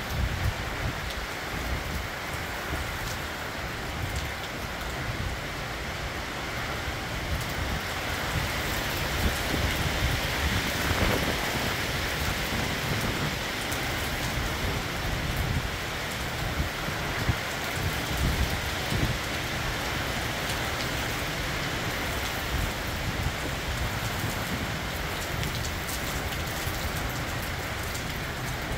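Summer rain falling steadily in an evening storm, an even hiss of rain that swells a little about a third of the way in.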